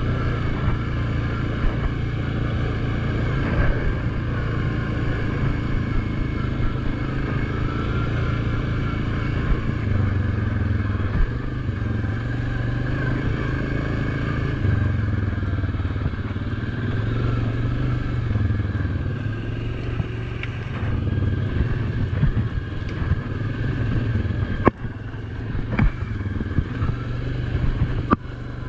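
Suzuki KingQuad ATV engine running steadily as it rides along a bumpy dirt trail, its pitch rising and falling slightly with the throttle, with rattles from the machine. There are a few sharp knocks near the end.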